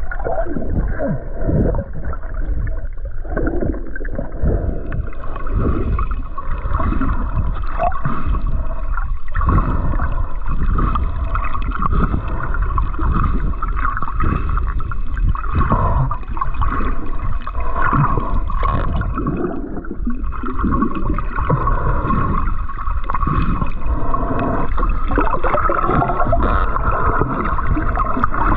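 Muffled water gurgling and sloshing around a snorkeler's camera. A faint steady high whine comes in about five seconds in and drops out briefly about twenty seconds in.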